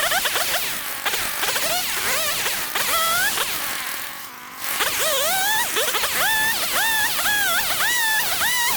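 Background electronic music: a repeating swooping synth figure, about two notes a second, with a brief drop in level a little before the middle.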